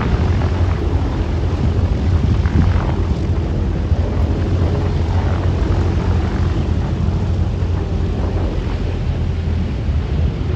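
A B-17G Flying Fortress's Wright R-1820 Cyclone nine-cylinder radial engines running at low taxi power as the bomber rolls along the apron: a steady, deep drone.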